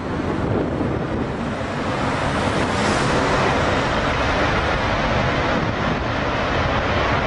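Twin Pratt & Whitney F119 turbofans of an F-22 Raptor running up to full afterburner for takeoff. The jet noise is loud and rushing, and grows stronger about two seconds in.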